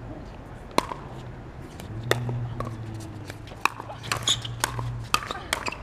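Pickleball rally: sharp pops of solid paddles striking the hollow plastic ball, with bounces on the hard court. The hits come a second or so apart at first, then quicken into a fast exchange in the second half.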